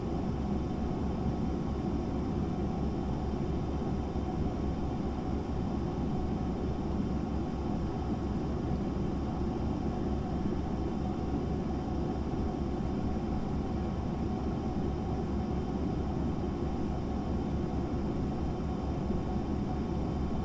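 A fan running with a steady low whir and a faint constant hum, from the white vented appliance beside the cat's bed.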